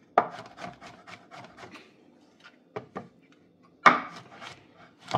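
Knife slicing mushrooms on a cutting board: a quick run of light cuts, about seven a second, for the first two seconds, then a few scattered knocks, the loudest about four seconds in.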